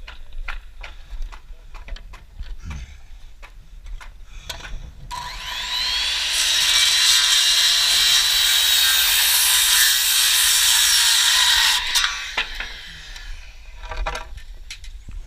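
A power saw spins up about five seconds in and cuts through wood for about six seconds, then stops abruptly; light knocks of handling the stock come before and after the cut.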